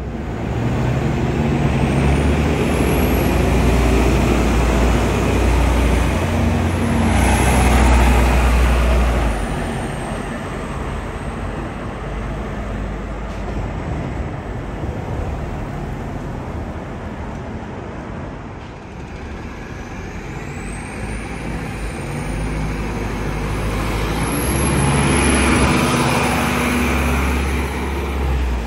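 Gillig Phantom diesel city buses pulling away, engines running hard under acceleration, with a high whine that rises and falls. The sound swells twice, over the first ten seconds and again near the end, with a quieter stretch of steady bus engine sound between.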